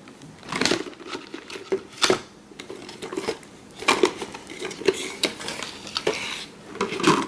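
Rigid plastic toy packaging being opened by hand: the clear cylinder and its plastic cage insert rustle, crackle and clack irregularly as the insert is slid out.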